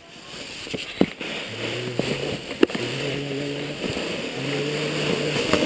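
A sled sliding down a snowy slope: a rush of runners on snow and wind that grows louder as it picks up speed, with two sharp knocks from bumps. A low steady drone comes and goes in stretches of about a second.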